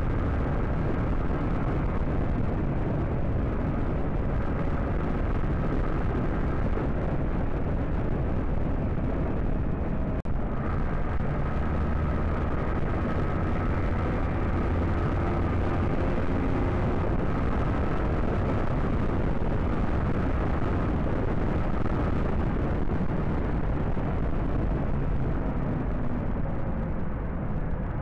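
Motorcycle engine running steadily at cruising speed under heavy wind rush on the microphone, the engine note shifting slightly in pitch.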